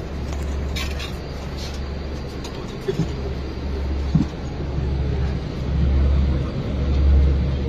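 Eicher bus running, heard from inside the passenger cabin: a steady low rumble that swells and eases, with two short knocks near the middle.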